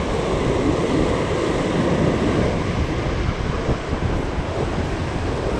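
Ocean surf breaking and washing over lava rocks, a steady rushing noise, with wind buffeting the microphone.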